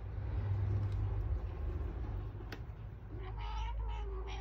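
A cat lets out one long, drawn-out meow starting about three seconds in, holding its pitch, while the cats play-fight. A low rumble fills the first second and a half.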